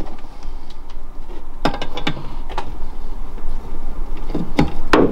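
A ratchet wrench clicks and knocks a few separate times against a fitting under a car's bonnet, over a steady low rumble. The ratchet is faulty and works only as a plain wrench, not as a ratchet.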